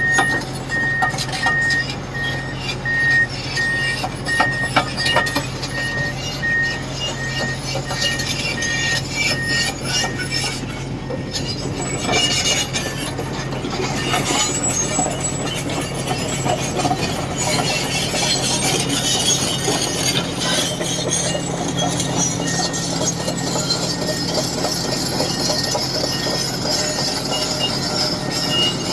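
Heavy earthmoving machinery running with a steady low engine drone and scattered metallic clanks. A reversing alarm beeps evenly for about the first ten seconds and then stops.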